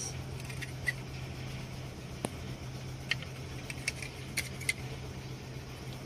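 A few light clicks and rattles from a plastic power window switch being turned over in the hand, over a steady low hum.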